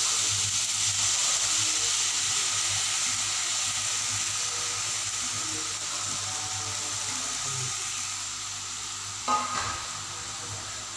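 Grated carrots frying in hot ghee in a heavy-bottomed pan: a steady sizzle as the carrots' moisture hits the fat, loudest at the start and slowly fading. About nine seconds in there is a brief knock with a short ring.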